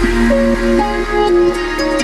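Background music: an electronic track with a stepping synth melody over a held bass.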